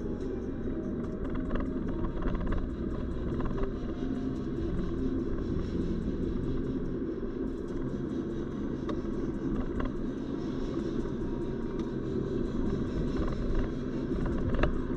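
Car driving along, with a steady low rumble of engine and tyres on the road and a few small knocks, the sharpest one near the end.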